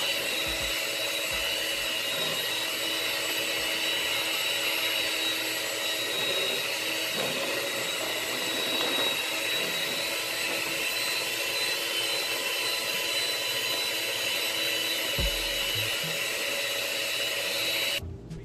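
Electric hand mixer running at a steady speed, its beaters churning cake batter in a bowl: a constant motor whine that cuts off suddenly near the end.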